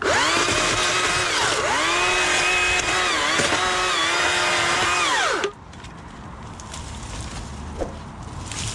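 Stihl chainsaw running at high speed, starting abruptly and cutting off about five and a half seconds in, its pitch dipping briefly twice along the way. Its pitch sags as it cuts into conifer wood, then picks back up.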